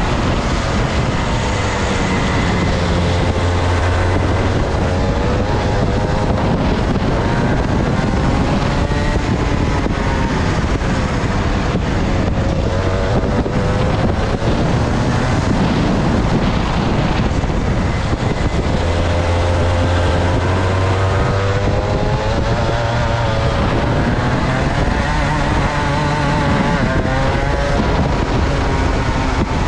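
Two-stroke kart engine heard from the driver's seat, revving up and down as the kart accelerates out of the bends and lifts off into them, its pitch rising and falling several times.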